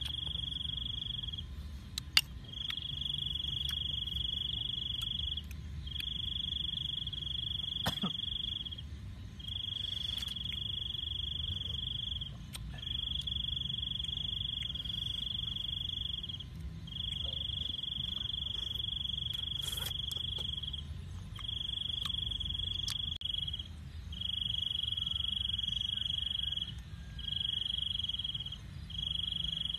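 Cricket trilling at night: one steady high-pitched tone in runs of one to three seconds, broken by short pauses. A few short sharp clicks of oyster shells being handled cut in.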